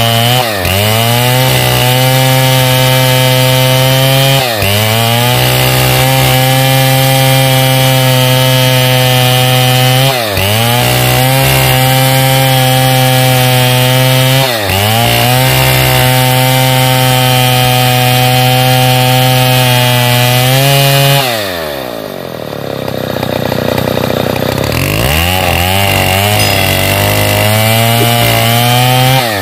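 Stihl 070 chainsaw, a big 105 cc two-stroke, running at full throttle while ripping a pine log lengthwise along the grain. The engine pitch dips briefly four times as the chain bogs under load and recovers. About two-thirds through, the revs fall away for a few seconds and then climb back up.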